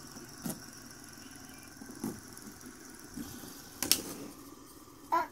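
LED fidget spinners whirring faintly and steadily, with about five light clicks and taps as they are touched and knocked against the wooden floor, the sharpest a little before and near the end.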